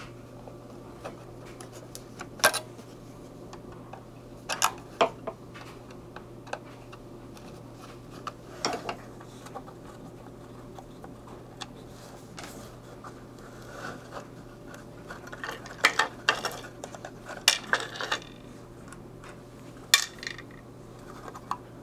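Small screws being taken out of a multimeter's case and set down on a wooden workbench, with handling of the meter and its case: scattered sharp clicks and clinks, bunched together later on.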